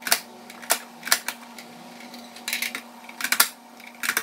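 Plastic push-down vegetable dicer, its lid pressed down again and again to drive chayote slices through the blade grid: a run of sharp, irregular clacks.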